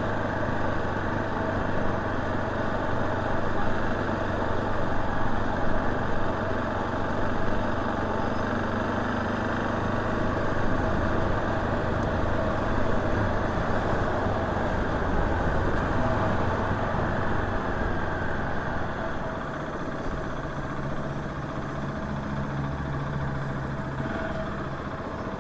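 KTM 690 SMC R supermoto's single-cylinder engine running steadily; about three-quarters of the way through its note shifts and it gets a little quieter.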